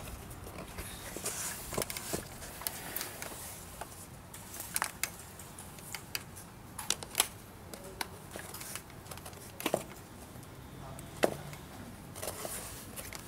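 Handling noise from leather slip-on shoes on a tile floor: irregular sharp clicks and taps with some rustling as the shoes are pressed and moved and an insole is pulled out.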